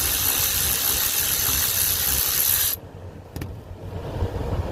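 Cordless electric ratchet running steadily, turning out a rear brake caliper pin bolt, then stopping abruptly about two and a half seconds in; a single click follows soon after.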